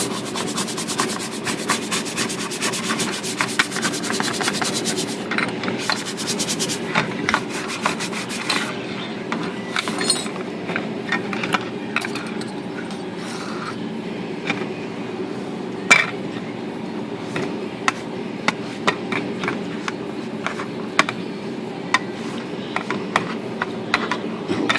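Stiff brush scrubbing the painted metal panel of a typewriter with cleaner: rapid back-and-forth strokes for the first eight seconds or so, then slower, scattered strokes and taps.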